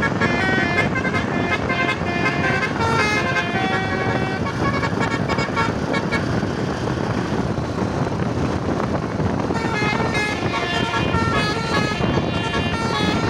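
Multi-tone basuri telolet horn playing a fast melody of stepping notes over steady road noise. The melody breaks off for a few seconds in the middle and then starts again.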